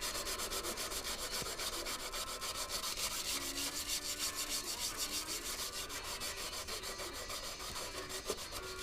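Sandpaper rubbed by hand over a car body panel in quick, even back-and-forth strokes, several a second.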